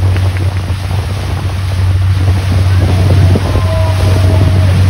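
Motorboat under way, its engine running with a steady low drone, while wind buffets the microphone and water rushes past in the wake.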